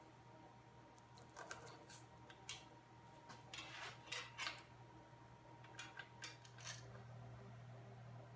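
Faint clicks and light metallic clinks of small parts being handled, in scattered clusters over a steady low hum.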